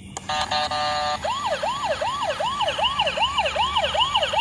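Battery-powered toy ambulance sounding its electronic siren. A steady electronic tone lasts about a second, then a fast repeating rising wail follows at about three sweeps a second.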